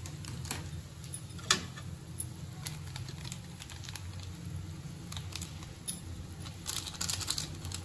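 Noodles and vermicelli simmering in a little water in a metal kadhai, with scattered soft ticks and pops over a steady low hum, and a spatula knock on the pan about one and a half seconds in. Near the end the Maggi masala sachet crinkles as it is shaken out over the pan.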